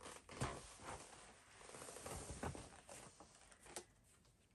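Faint handling sounds of a picture book being fetched and picked up: soft rustling with a few light knocks.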